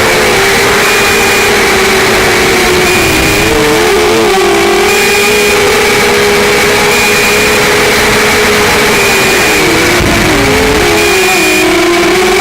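QAV200 racing quadcopter's brushless motors whining steadily over a constant hiss. The separate motors' pitches split apart, wobble and cross twice, about four seconds in and again near ten seconds, as the throttle shifts. A short high beep repeats about every one and a half seconds.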